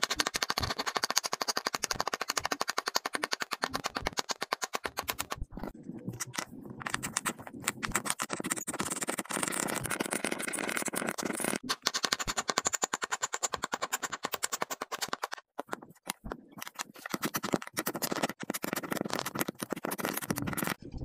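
Pink kinetic sand balls crushed and compacted under a square wooden press, giving a dense, rapid crackling crunch with a few brief pauses.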